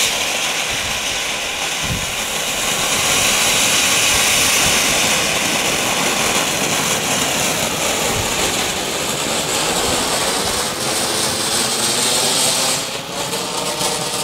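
Small Category 1 ground fountain firework hissing steadily as it sprays sparks.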